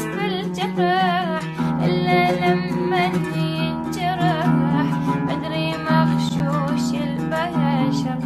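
Iraqi song with an oud played under a woman's singing voice, which bends and ornaments the melody.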